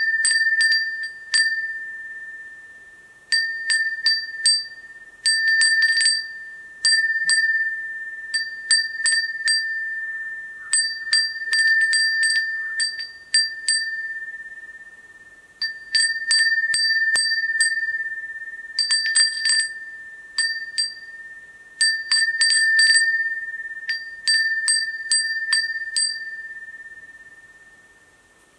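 Kinomoto crystal-glass furin (Japanese wind chime) ringing as its clapper strikes the glass bell in uneven clusters of quick taps. Each strike gives a clear, bright single-pitched ring that fades away between clusters.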